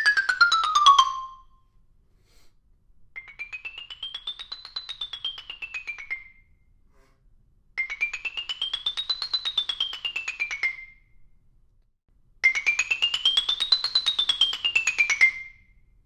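Stone x60 mallet keyboard instrument, its bars struck with mallets in fast runs of rapid strokes: a run ends about a second in, then three runs each climb up the scale and come back down. The first of these three is quieter than the last two.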